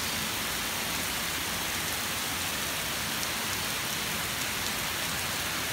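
Heavy rain pouring down, a dense and steady hiss of rain on surfaces with no let-up.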